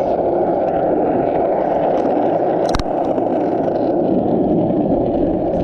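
Heavy wind noise buffeting the microphone, with one sharp click a little before the middle.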